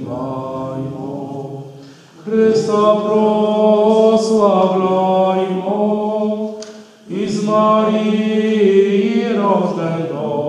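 A group of voices sings a Christmas carol unaccompanied, in long held phrases, with short breath pauses about two seconds in and again about seven seconds in.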